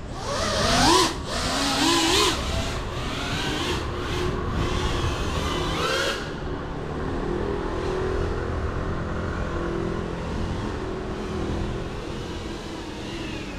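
Small FPV whoop drone's motors and guarded propellers whining, the pitch sweeping up and down with the throttle. After about six seconds it drops to a fainter, steadier hum.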